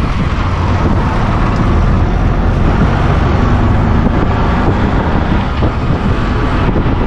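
Auto-rickshaw on the move: its small engine running, with wind rushing over the open sides and buffeting the microphone. A steady, loud rumble.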